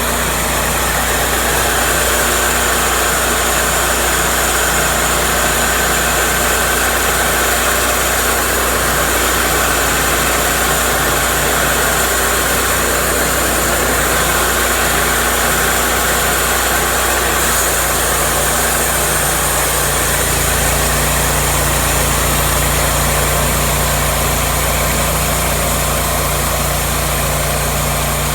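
Cook's MP-32 sawmill running steadily with a loud, even engine drone; its low pitch shifts slightly about twenty seconds in.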